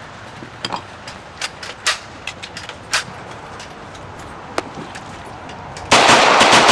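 A few scattered light clicks and knocks, then about six seconds in a sudden loud burst of rapid gunfire starts and keeps going.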